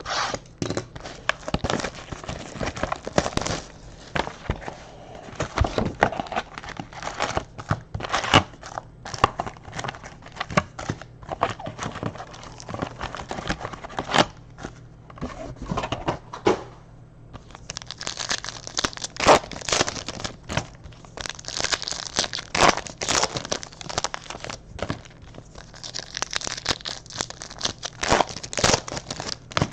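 Foil trading-card pack wrappers being torn open and crumpled by hand, a long run of irregular crinkling, tearing and rustling that grows busier and brighter about halfway through.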